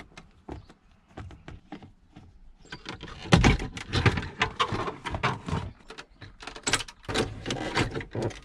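Plastic clicks, knocks and rattling as a BMW E46's glove box and its screws are worked loose from the dash, sparse at first, then busier after a louder knock about three seconds in.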